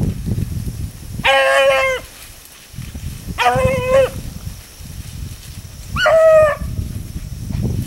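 Beagle baying on a rabbit's trail: three drawn-out bawls about two seconds apart, with low rustling noise between them.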